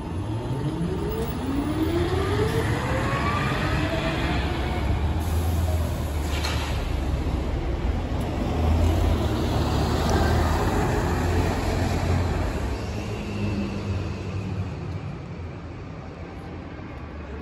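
Articulated electric trolleybus pulling away, its traction motor whine rising in pitch over the first few seconds over a steady low rumble of tyres and traffic. The sound fades as the bus moves off.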